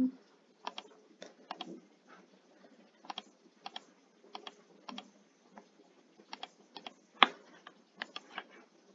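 Irregular single clicks of a computer keyboard and mouse, about a dozen spread through, with one louder click about seven seconds in.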